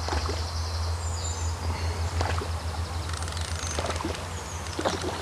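Steady low electrical hum with faint hiss, the background of an old VHS recording, with small birds chirping faintly a few times.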